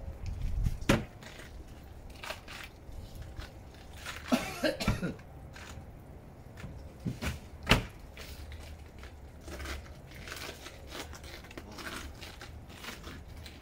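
Plastic wheeled garbage bins knocking as bags go in and lids drop, with footsteps and scuffing on icy ground; two sharp knocks stand out, about a second in and near eight seconds. A short cough about four and a half seconds in.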